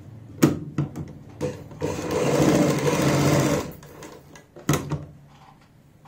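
Sewing machine stitching cloth along a buckram facing: a few knocks as it gets going, a steady run of stitching for about two seconds, then it stops, with a couple more knocks about a second later.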